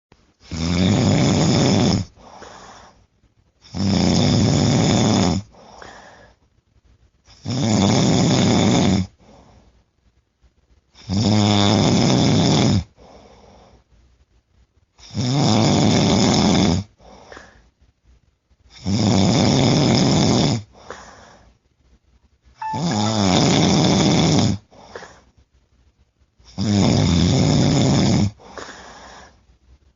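A person snoring loudly and rhythmically: a long, rough, rattling snore about every four seconds, eight in all, each followed by a short, softer breath out.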